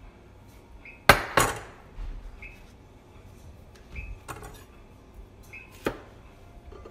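A metal kitchen knife set down on the countertop: two loud clanks about a second in, ringing briefly. Lighter knocks follow, then near the end a sharp tap of the knife blade cutting through a cucumber onto the cutting board.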